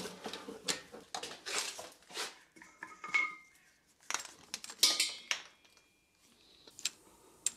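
Scattered metallic clinks, taps and rattles of hoses and metal fittings being handled, a few of them ringing briefly around the middle.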